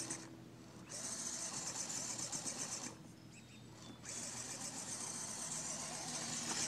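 Small electric motor and gears of a radio-controlled crawler truck whining as it creeps over dirt and roots, cutting out twice for under a second each when the throttle is let off.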